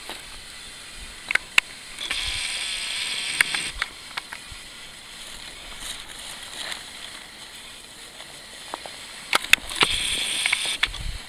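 A large paper map rustling and crackling as it is handled, in two spells of crinkling with sharp crackles: one about two seconds in and another near the end.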